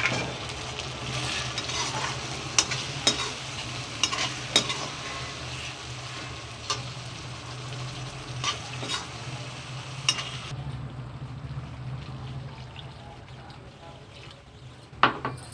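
Curry gravy with potatoes sizzling in an iron wok while a metal spatula stirs it, scraping and knocking against the pan several times over a steady low hum. The sizzle cuts off abruptly about ten seconds in, and one sharp knock comes near the end.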